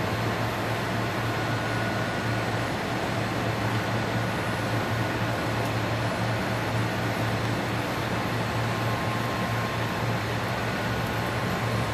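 Monti Antonio 180T rotary heat-transfer calender running: a steady mechanical hum with a strong low drone and a faint higher whine now and then.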